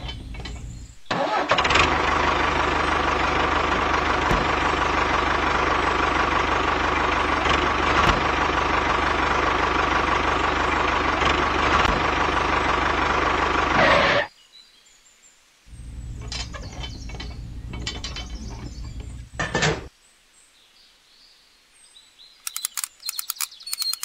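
An engine running steadily, starting suddenly about a second in and cutting off suddenly after about thirteen seconds; a few seconds later a quieter run of the same engine sound follows briefly. Near the end, light clicks come as a small screwdriver turns a screw.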